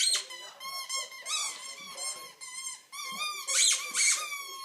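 Rubber squeaky dog toy being chewed by a dog, giving a quick run of high-pitched squeaks, some sliding up and down in pitch, with the loudest squeaks near the end.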